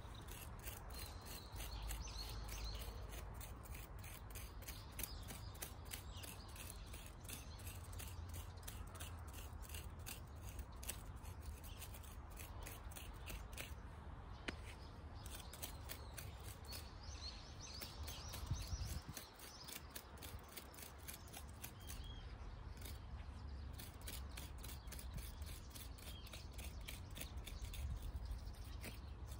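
A fast, even series of short clicks running on throughout, over a low rumble.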